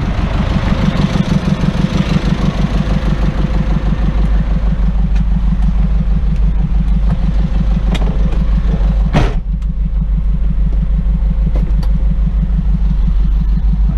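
Pickup truck engine running steadily under a heavy load of crushed gravel, with a few light clicks and one loud clunk about nine seconds in.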